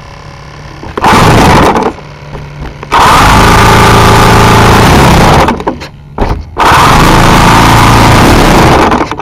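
An electric starter spinning a model airplane's engine, very loud and close, in three cranking bursts: a short one about a second in, then two of a couple of seconds each, with brief pauses between.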